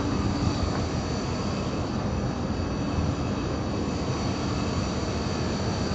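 Steady machine hum with an even rushing noise under it, holding at one level throughout.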